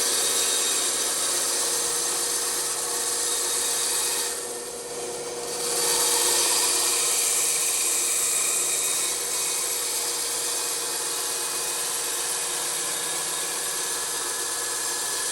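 Bandsaw cutting through a block of wood: a steady hiss of the blade in the wood over the machine's hum. The cutting eases for about a second, about four seconds in, while the saw keeps running.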